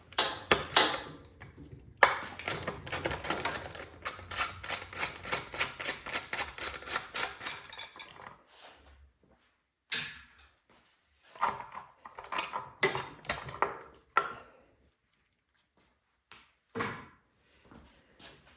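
Ratchet wrench clicking rapidly and evenly for several seconds while a bolt is undone on the generator's carburetor, then a few scattered metal clanks and taps of tools and parts.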